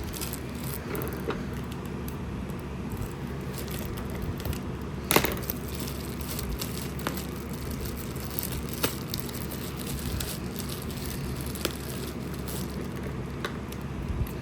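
Handling noise from unboxing: scattered clicks and crackles of packaging and parts being handled, with one sharp crack about five seconds in, over a steady background hum.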